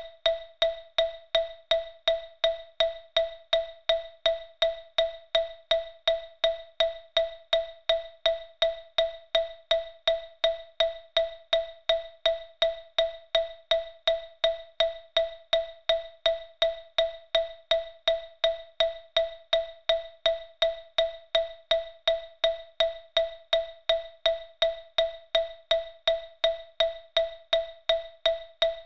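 Xylophone sounding the single note E5 as a metronome click at 165 beats per minute, about two and three-quarter strikes a second. Every strike is identical, a short ringing tone that fades quickly before the next.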